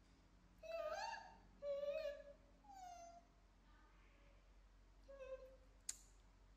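Monkey calling: four short, high-pitched calls, the third gliding down in pitch, with a single sharp click near the end.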